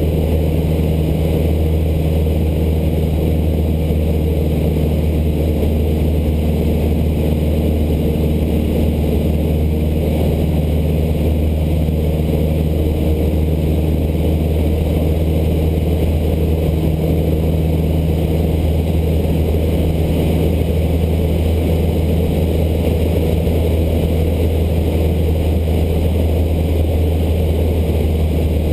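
Cessna 152's four-cylinder Lycoming O-235 engine and propeller running steadily in flight, a constant low drone heard inside the cockpit.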